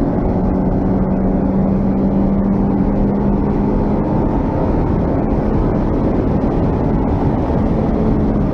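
Honda Civic's D16Z6 1.6-litre SOHC VTEC four-cylinder engine running hard at a steady, high note under load, heard from inside the cabin along with road and wind noise.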